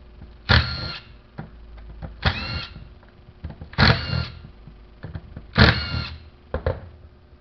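A small electric motor whirs in four short bursts, each rising in pitch as it spins up. These fit a cordless driver backing out the Torx screws of an angle grinder's housing.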